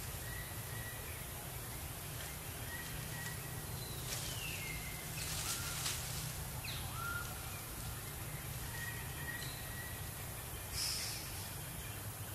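Outdoor forest ambience: a steady low rumble with faint high calls, one sliding down in pitch about four seconds in, and a few brief rustles.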